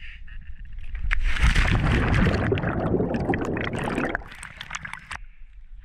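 A dense rush of air bubbles heard underwater, loud bubbling and gurgling full of small pops, which begins about a second in and cuts off suddenly about four seconds later.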